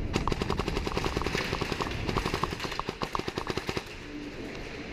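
Airsoft guns firing in rapid bursts, a fast string of sharp shots that stops about four seconds in.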